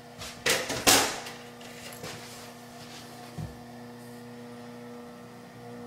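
A few short rustling, scraping noises about half a second to a second in, then a steady low hum from the blower door fan setup idling near its lowest speed.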